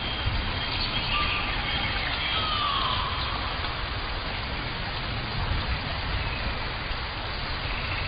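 Rainforest ambience: a steady hiss with a low rumble underneath, and birds whistling in the first half, among them a falling whistle about two and a half seconds in.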